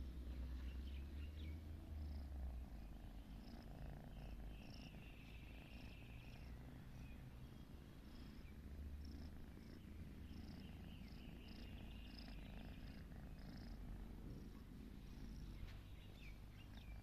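Kitten purring as it snores, a soft, continuous low rumble that swells and eases slowly. Faint short high chirps repeat in the background.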